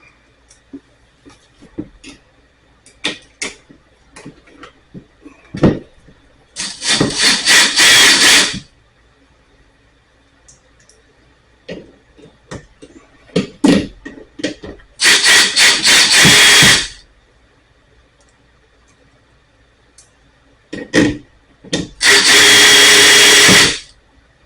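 Cordless drill/driver running in three bursts of about two seconds each, with small clicks and knocks of tools and parts being handled in between.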